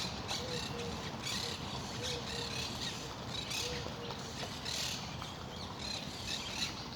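Steady rush of running water, with birds chirping now and then over it.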